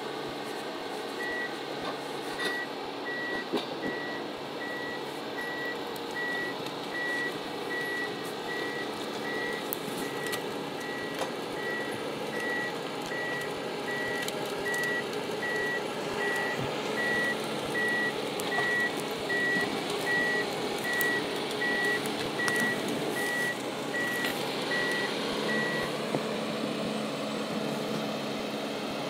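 Ponsse Elephant King forwarder moving with its reversing alarm beeping steadily, a little under two beeps a second, over the running diesel engine. The beeping starts about a second in and stops shortly before the end, while the engine grows louder in the second half.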